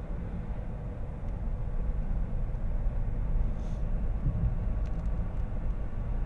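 Steady low rumble of a car's tyres and engine on the road, heard from inside the cabin while driving.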